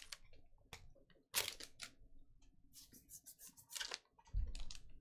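Trading cards being flicked through by hand: an uneven string of short clicks and slides of card on card, with a dull low thump near the end.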